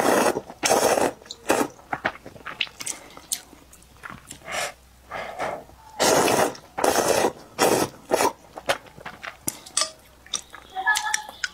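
A person slurping thin noodles out of a bowl of spicy beef noodle soup. There are loud sucking slurps at the start and again about six to seven and a half seconds in, with wet chewing between them.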